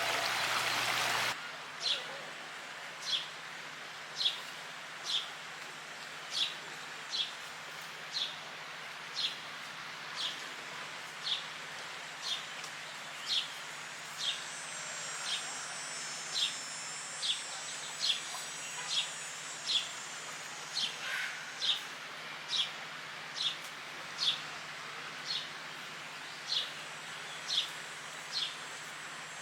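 A bird repeats a single short, sharp chirp about once a second, steady and regular, over faint outdoor background noise. A higher, thin trill joins in partway through. About a second in, a louder wash of sound with a steady tone cuts off suddenly.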